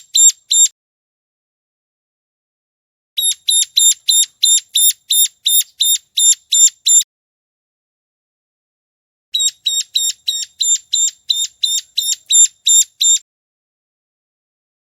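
Ciblek gunung (a prinia) calling: a quick train of sharp, high, identical notes, about three to four a second. There are two bouts of roughly four seconds each with a clean silence between them, as in a looped lure recording.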